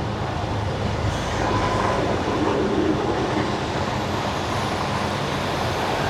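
Car driving on a wet road: a steady hiss of tyres on wet asphalt over a low road rumble, swelling slightly about a second in.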